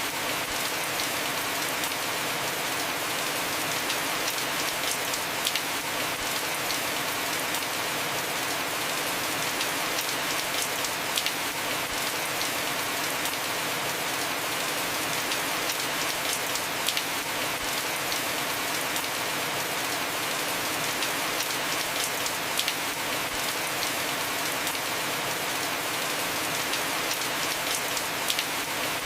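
Heavy rain falling steadily on a roof: a constant hiss with scattered individual drop ticks.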